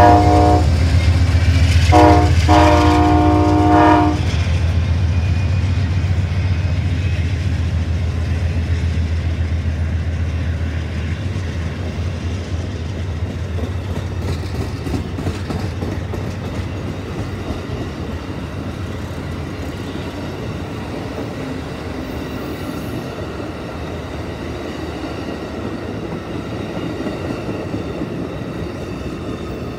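Amtrak passenger train passing at speed behind two GE Genesis diesel locomotives: the horn chord sounds briefly at the start, then again for about two seconds, over the low drone of the diesel engines. After about ten seconds the engine drone gives way to the rumble and clickety-clack of the passenger cars rolling by, slowly fading.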